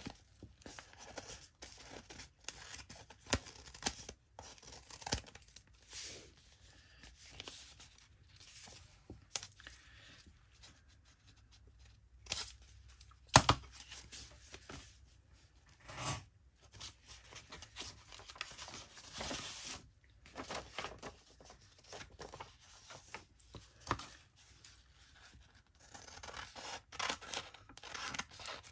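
Scissors cutting through paper journal pages in short, irregular snips, mixed with paper rustling and handling. A single sharp knock stands out about halfway through.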